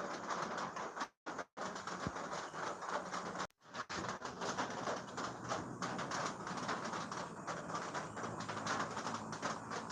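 Steady rain falling, a dense even hiss with fine pattering, broken twice by brief dropouts of the sound.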